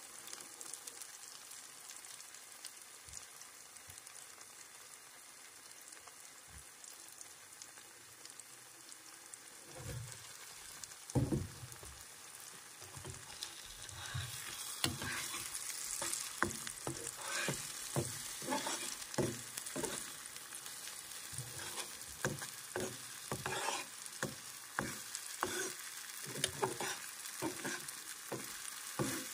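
Food sizzling in hot oil in a nonstick frying pan. About halfway through, a slotted spatula starts stirring and scraping the mixture across the pan, in repeated strokes about one or two a second over the sizzle.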